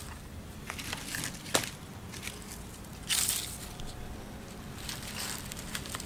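Small fire catching in dry grass and twigs, with scattered crackles and snaps and a louder rustle of dry tinder about three seconds in.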